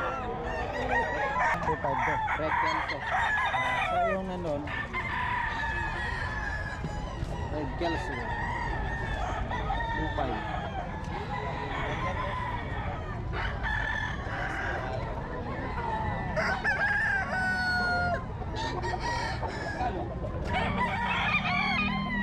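Many gamecocks crowing over one another, with clucking, in a yard full of penned fighting roosters; one long crow stands out about three-quarters of the way through.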